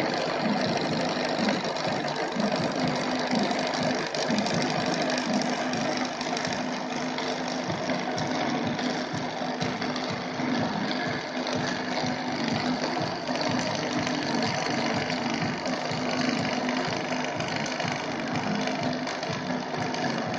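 Milling machine running, its end mill cutting along the edge of an aluminium AR-15 handguard clamped in a vise. A steady low tone sits under a continuous rough chatter of the cutter in the metal.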